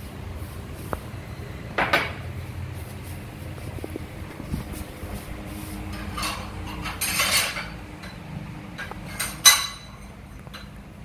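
Occasional clinks and scrapes of plates and cutlery, the sharpest about two seconds in and again near the end, over a low steady hum.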